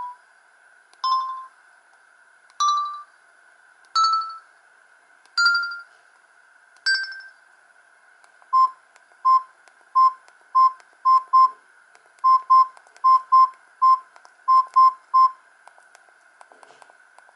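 Samsung GT-E2100 mobile phone playing ringtone beeps through its speaker. First come single beeps about every second and a half, each a step higher in pitch than the last. Then come quicker short beeps at one pitch in a rhythmic pattern of singles and pairs, over a faint steady hiss.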